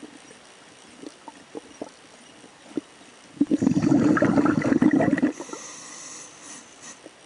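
A burst of underwater bubbling for about two seconds, midway, like a diver's exhaled air leaving a breathing regulator. A few faint clicks come before it.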